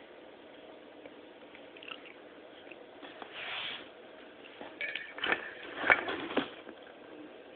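Pets eating, with wet squishing and chewing sounds. A short soft hiss comes just before the middle, then a burst of sharp clicks and knocks in the second half, the loudest sounds here.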